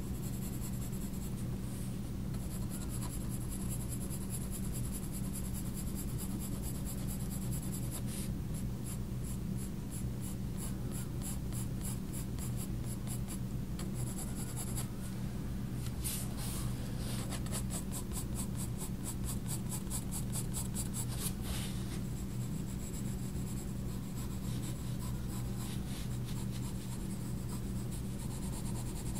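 Faber-Castell Polychromos coloured pencil scratching on sketchbook paper in many short, quick hatching strokes, coming in denser runs in the middle. A steady low hum runs underneath.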